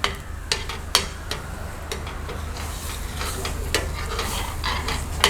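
A spatula stirring spiced onion-tomato masala that is frying in a pan, with a soft sizzle and a few sharp taps of the spatula on the pan.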